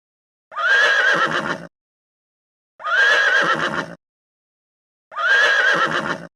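Horse whinnying: the same whinny three times, each about a second long with dead silence between. Each whinny is a high, wavering call that drops low at its end.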